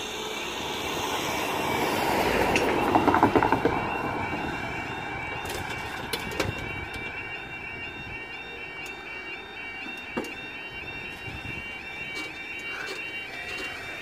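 UK level crossing yodel alarm warbling steadily as the crossing's warning sequence runs and its barriers lower. About two to four seconds in, a vehicle drives past, the loudest sound. Two sharp knocks come later.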